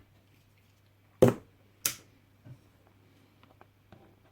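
Two sharp knocks about a second apart, the first the louder, then a few faint light clicks: small objects handled and set down on a workbench during soldering work.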